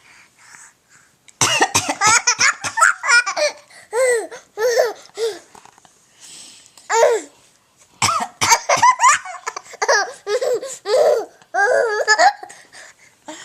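Someone coughs a few times and a baby breaks into high-pitched bursts of laughter in response, twice: once about a second and a half in and again about eight seconds in.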